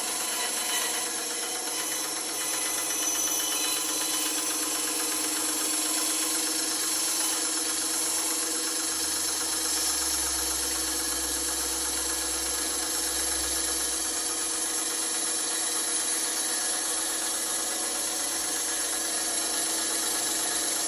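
Bandsaw running steadily while cutting wood, a constant motor hum with a fine, rapid rattle from the blade.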